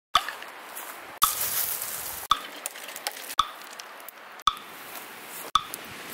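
Six sharp knocks, evenly spaced about a second apart, each right after a brief dropout of the sound, with a steady outdoor hiss between them.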